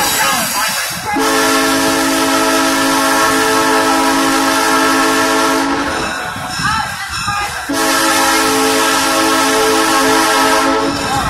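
Locomotive horn sounding two long, steady blasts of the grade-crossing signal for an approaching road crossing, with a gap of about two seconds between them. Under and between the blasts comes the rumble and clatter of the coaches' wheels on the rails.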